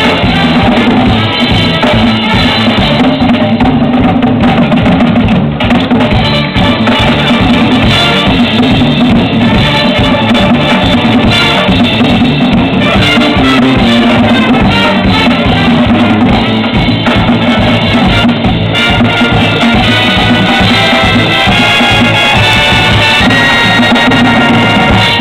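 Combined military brass bands playing loudly, with brass over a steady beat from bass and snare drums.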